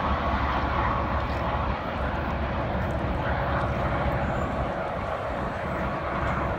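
Steady low vehicle rumble, its deepest part falling away about two seconds in.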